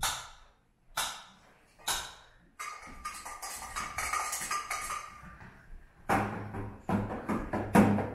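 Hand percussion played freely: three single strikes about a second apart, then a steady shaking rattle. About six seconds in, a quicker rhythm of drum hits with bright jingling strikes takes over.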